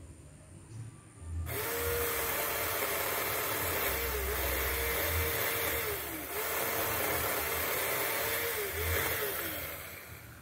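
Bull 4-inch cordless mini chainsaw cutting into a thick trunk of water apple wood. Its electric motor and chain whine steadily, and the pitch sags briefly several times as the cut loads it. The saw starts about a second and a half in and winds down near the end.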